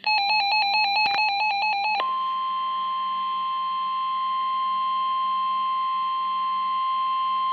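A weather radio's warbling electronic alert alarm for about two seconds, then the steady NOAA Weather Radio 1050 Hz warning alarm tone, which signals that a warning message is about to follow.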